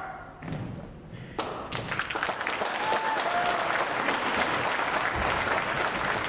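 Audience applauding. It starts suddenly about a second and a half in and carries on steadily.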